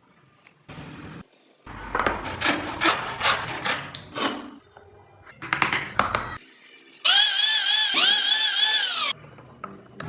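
Wood being sawn with repeated strokes, in short cut-up bursts, followed about seven seconds in by a loud, high power-tool whine that rises and falls in pitch for about two seconds.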